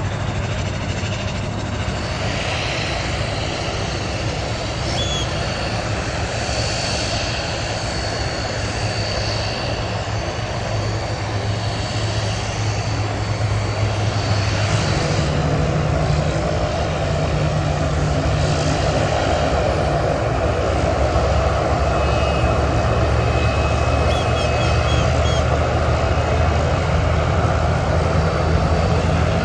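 Airplane engines running with a continuous low drone; the hum shifts up in pitch and gets louder about halfway through, with a faint high whine in the first half.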